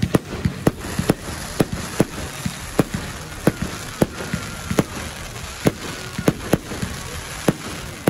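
Firework display: a rapid, irregular string of sharp bangs, about two or three a second, as shells burst overhead.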